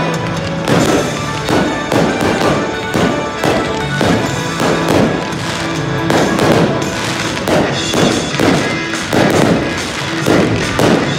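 Fireworks display: shells launching and bursting in quick succession, one after another, with music playing underneath.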